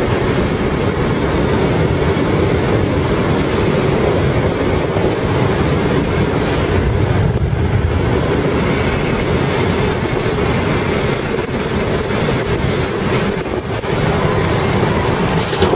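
Steady rushing of air over a light plane's cabin and windscreen in an engine-out glide, with the propeller stopped and no engine sound. Near the end a few knocks as the plane rolls over rough ground after an emergency landing.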